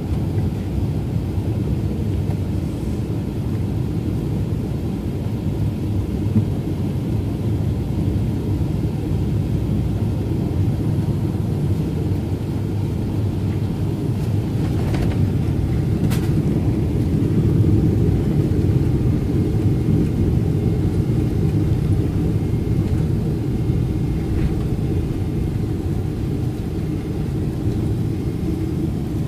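Airliner cabin noise during landing: a steady low rumble, with a short knock about halfway through as the wheels meet the runway. The rumble then swells for a few seconds during the rollout and eases off again.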